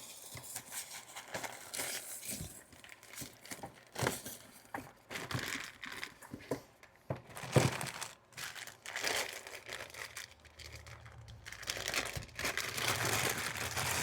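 Packing material crinkling and rustling as a parcel of fuel injectors is unpacked by hand, with irregular crackles, some tearing and a few light knocks; the loudest knock comes about seven and a half seconds in.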